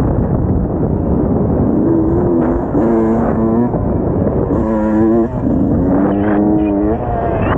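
Dirt bike engine revving up and falling back again and again while being ridden around a motocross track, its pitch climbing and dropping with throttle and gear changes, over a steady low rumble.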